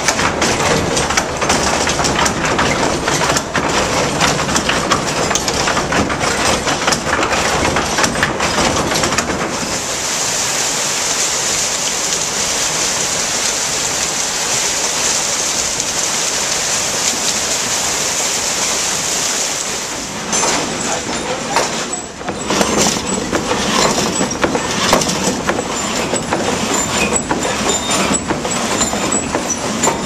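Water-powered sash sawmill running: its wooden gearing and saw mechanism clatter and knock steadily. From about a third of the way in, for some ten seconds, this gives way to the steady rush of water pouring off the turning water wheel, and then the clattering machinery returns.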